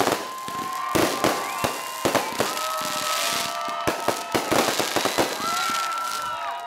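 Aerial fireworks going off in a rapid string of bangs and pops, with several high whistles holding and overlapping between the bursts.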